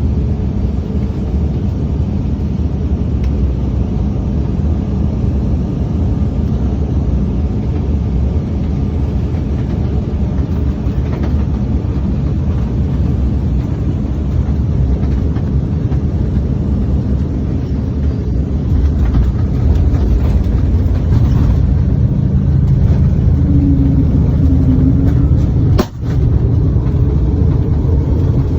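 Cabin noise of an Embraer E195-E2 airliner on approach: a steady low rumble of engines and airflow that grows louder about two-thirds of the way through. A sharp knock comes near the end.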